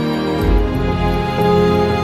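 Slow, gentle background music with held tones, a low bass note coming in about half a second in.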